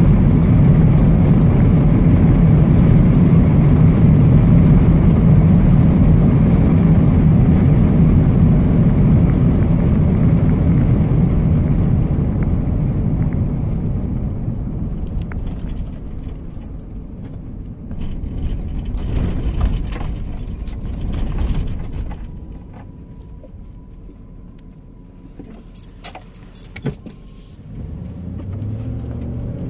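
Cab noise of a 1998 Ford Expedition with a 5.4 L V8: steady engine and road noise at about 60 mph that fades as the truck slows to a stop, leaving a quieter idle. A few light clicks and rattles come through in the quiet stretch near the end.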